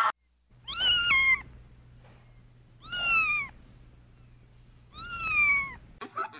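Cat meowing three times, about two seconds apart, each meow falling in pitch.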